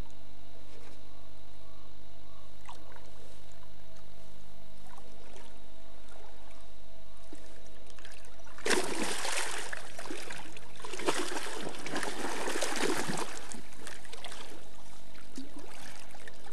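Water splashing in the river shallows as a big mahseer is grabbed and held by hand at the bank: a sudden burst of splashing about halfway through, then a longer bout soon after. A steady low hum runs underneath.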